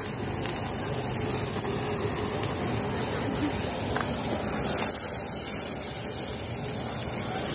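Handheld butane gas torch hissing steadily as its flame sears a squid skewer on a griddle.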